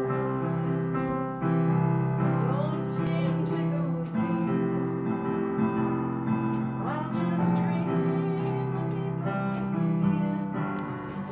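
Home keyboard instrument played by hand: a melody over chords, the notes held steady for a second or two at a time rather than dying away.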